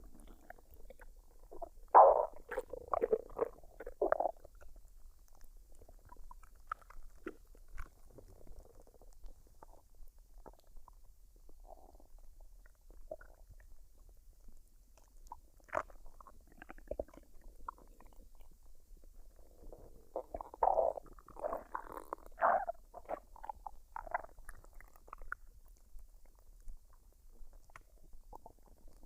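A woman's stomach gurgling and rumbling as it digests a full meal, in two louder spells of rapid gurgles, about two seconds in and again around twenty seconds in, with fainter scattered gurgles between.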